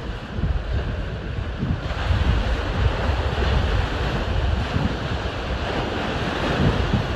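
Strong wind buffeting the microphone over the rushing wash of choppy waves breaking close by; the hiss of the surf grows louder about two seconds in.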